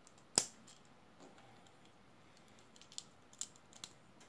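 LEGO plastic bricks clicking as they are pressed and fitted together by hand: one sharp click about half a second in, then a few lighter clicks near the end.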